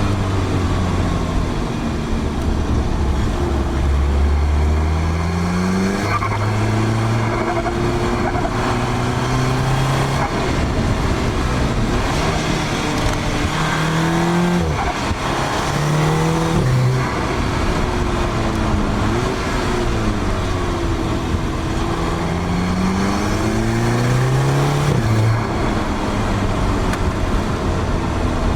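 Audi S3 8P's turbocharged 2.0 TFSI four-cylinder, fitted with an aftermarket downpipe, pulling up through the revs and dropping back several times, as when accelerating through gear changes, over a steady hiss of road noise.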